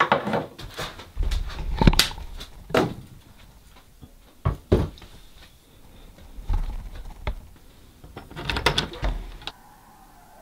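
Irregular knocks, clunks and low thumps of someone moving through a small wooden cabin and opening a door to go out. Near the end these stop and faint, distant coyote howling comes in.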